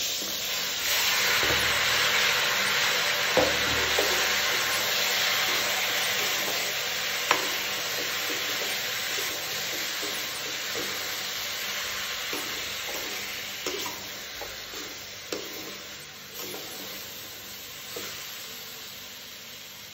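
Chopped raw green mango pieces sizzling as they hit hot spiced oil in a metal kadai. The sizzle starts suddenly, is loudest in the first few seconds and slowly dies down, while a slotted spoon clinks and scrapes against the pan now and then as the pieces are stirred.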